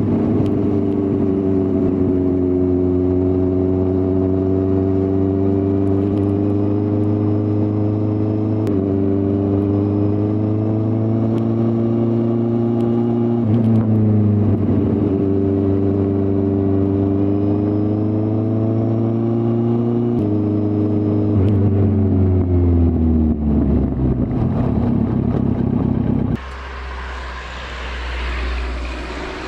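2015 Kawasaki Z800's inline-four engine running steadily under way, its note shifting in pitch a few times, then falling over a few seconds before the engine sound drops away near the end, leaving wind rush.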